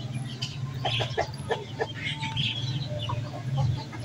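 Domestic chickens clucking in short, scattered calls, over a steady low hum, with a few short clicks about a second in.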